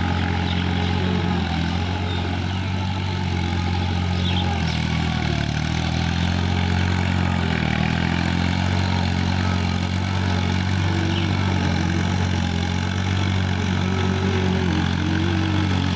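Diesel tractor engine running steadily under load as it drags a rotary puddler through flooded paddy, its pitch wavering briefly about five to eight seconds in.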